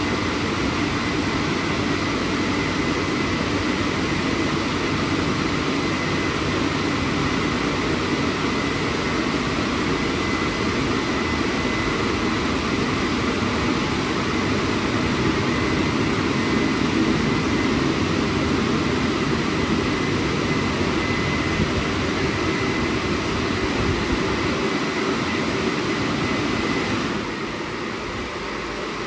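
WashTec SoftCare² Pro rollover car wash's drying blowers running steadily, a continuous rush of air with a faint steady whine; the sound drops a little and gets duller near the end.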